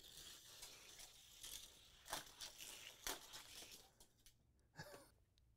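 Faint rolling rattle of a die-cast Hot Wheels car (Project Speeder) running along orange plastic track, with a couple of light clicks. It fades out about four seconds in.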